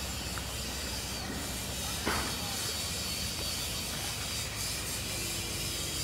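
Steady outdoor background noise, a hiss over a low rumble, with one short sharp sound about two seconds in.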